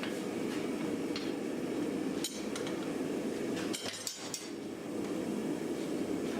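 A forge runs with a steady roar while a few light metallic clinks and taps of tools on hot iron ring out, once a little past two seconds in and in a quick cluster around four seconds in.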